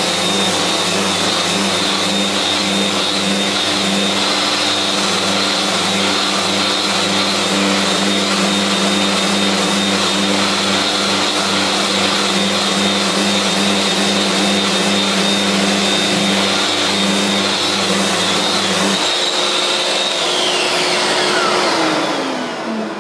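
Festool RO-125 Rotex sander running in rotary disc mode with the hard pad and 120-grit paper, sanding rough purpleheart, with a steady high whine. Its low rumble drops out about 19 seconds in, and the motor then winds down with a falling whine near the end.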